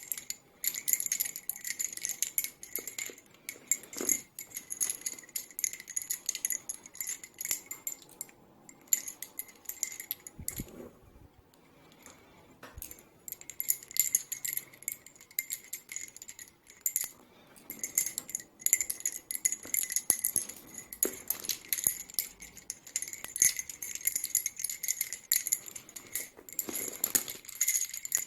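Bobbin-lace bobbins clicking and clacking against one another in quick, irregular runs as they are worked, with a short lull about ten seconds in.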